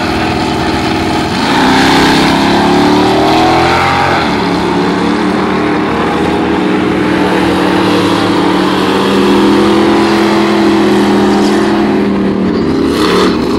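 Drag-racing car engines. A car launches about a second and a half in, its engine revving up as it pulls away. Then a second car's engine runs at high revs through a tire-smoking burnout.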